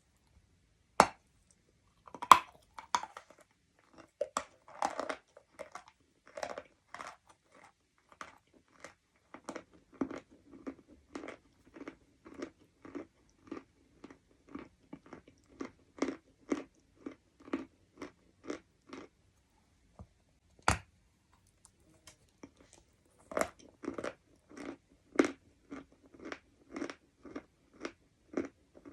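A person biting into hard chalk-like lumps and chewing them close to the microphone. There are sharp, loud snaps of the bites near the start and once about two-thirds of the way through. Between and after them comes steady crunchy chewing at about two chews a second.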